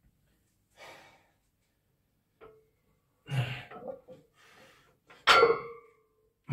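Heavy breathing and a loaded barbell being pulled and set back down during deadlift reps. About five seconds in the plates hit the floor with a sharp metallic clang that rings on briefly.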